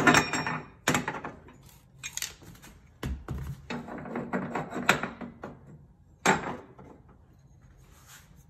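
Metal clanks and clinks of burner caps and cast-iron grates being set back onto a Bosch stainless-steel gas cooktop: a handful of separate knocks with a short ring, the loudest right at the start.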